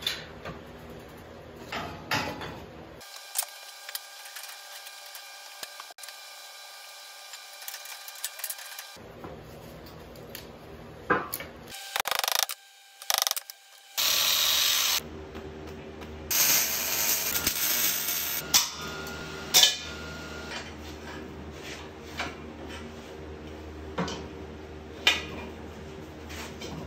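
Steel fabrication sounds in changing short takes: clicks and knocks of steel parts being handled and assembled, a steady whine for several seconds, and about halfway a loud burst of about a second from an angle grinder cutting steel.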